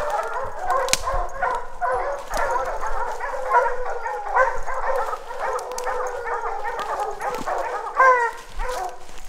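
A pack of bear hounds baying at a treed bear, many voices overlapping without a break, with one louder drawn-out bawl about eight seconds in.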